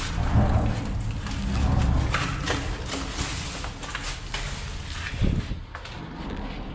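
Footsteps scuffing and rustling over dry leaves and debris in a concrete drain tunnel, with irregular knocks. A low rumble of traffic on the road overhead fills the first couple of seconds.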